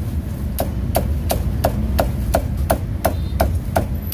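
Meat cleaver chopping crackling-skinned roast pork belly on a thick wooden chopping block: a steady run of sharp chops, about three a second, starting about half a second in.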